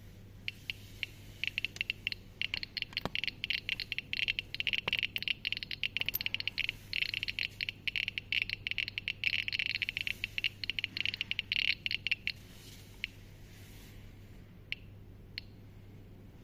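Piezo buzzer of a CAJOE RadiationD-v1.1 DIY Geiger counter, clicking once for each count from its glass Geiger tube. A few scattered clicks turn, about two seconds in, into a fast, irregular crackle that lasts some ten seconds: a high count rate while jars of sample material sit beside the tube. Near the end it falls back to the occasional clicks of background radiation.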